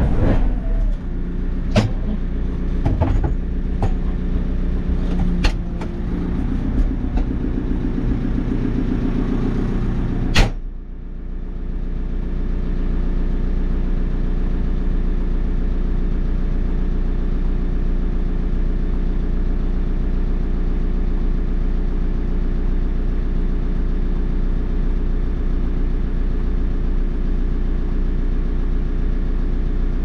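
Diesel engine of a JCB 3CX backhoe loader running, with several clanks and knocks over the first ten seconds. About ten seconds in comes one sharp bang, after which the engine runs on steadily and sounds more muffled.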